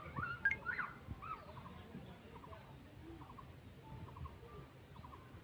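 Chickens clucking and calling faintly, with a few louder calls in the first second, then a run of small repeated chirps.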